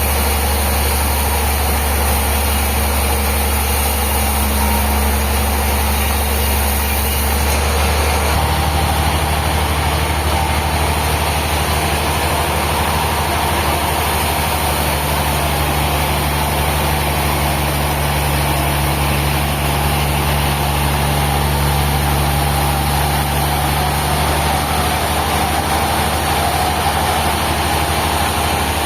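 Engine-driven sawmill machinery running steadily with a low drone; its tone shifts lower about eight seconds in.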